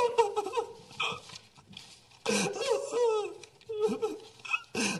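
People in a council chamber laughing in several short bursts, the loudest about two to three seconds in.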